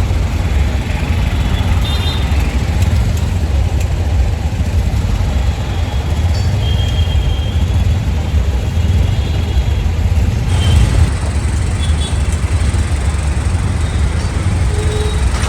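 Steady, loud low rumble of road vehicle noise, with a few faint brief high tones.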